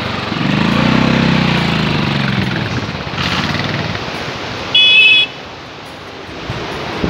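A vehicle running on the road under a steady rushing noise, its engine pitch rising and falling over the first couple of seconds. About five seconds in, a vehicle horn sounds once for about half a second, louder than anything else.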